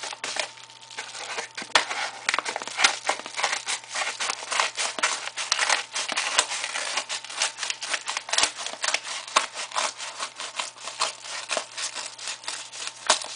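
Mailing envelope being handled and opened: rapid, irregular crinkling and crackling of the envelope, with sharper clicks scattered throughout.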